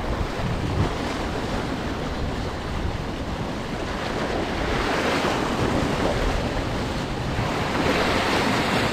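Sea surf washing and breaking against a rocky shoreline, swelling louder about five seconds in and again near the end, with wind buffeting the microphone.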